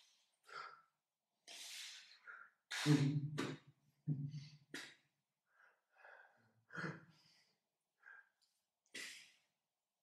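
A man's breath and mouth noises: a string of short, sharp exhalations and puffs of air, with brief low hummed grunts about three to four seconds in.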